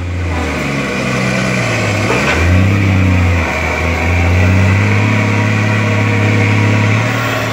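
Heavy dump truck's diesel engine revving hard under load while pulling to free a truck stuck in mud. The revs ease off briefly twice, then hold steady near the end.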